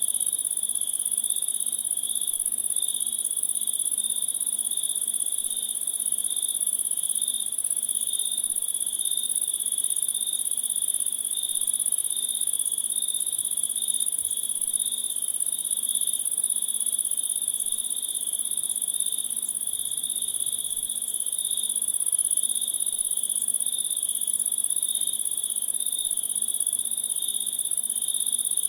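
Night insect chorus: a steady, very high trill with a second, lower pulsing trill beneath it, unchanging throughout.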